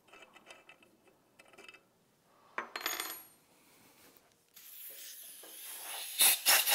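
Faint ticking of a thread tap being backed out of freshly cut threads in an aluminium engine case, then a sharp metal clink with a brief ring about two and a half seconds in. A hiss rises from about four and a half seconds in and is loud near the end.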